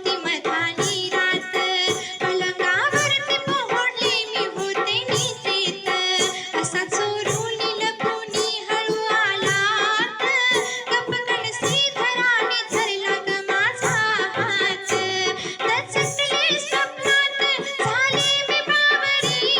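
Marathi gavlan devotional song: a voice singing a melody over a steady hand-drum beat.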